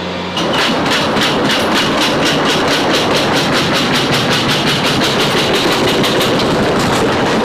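Loaded pallet of bottled water rolling over the roller tracks of a cargo aircraft's floor as it is pushed by hand. It is a loud, rapid, even clatter of about five or six clacks a second that starts suddenly about half a second in.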